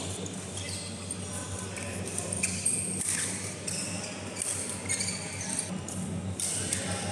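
Badminton rally: shoes squeaking on the court mat, with sharp racket hits on the shuttlecock, the loudest about two and a half seconds in. Under it runs a steady low hum, with faint voices from neighbouring courts.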